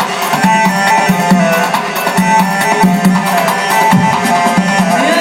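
Live band music: a steady drum rhythm under a held melody line.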